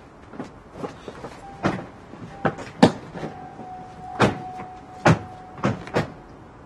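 A string of car doors shutting, about ten sharp knocks at uneven spacing, with a faint steady tone under the middle of the run.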